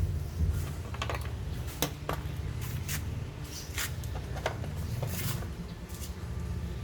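Scattered light clicks and knocks of small parts and hand tools being handled while the e-bike is worked on, over a steady low hum.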